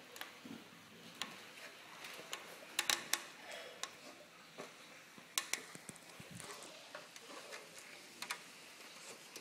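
Irregular light clicks and taps of handling, the sharpest a quick pair about three seconds in and another about five and a half seconds in, over a faint steady hiss.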